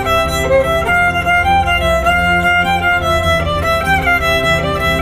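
Fiddle music: a bowed fiddle melody moving from note to note over a steady low backing.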